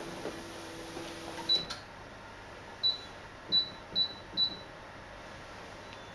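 Laminating machine's control-panel keypad beeping as its buttons are pressed: five short high beeps, the last three in quick succession, with a faint low hum under the first second and a half.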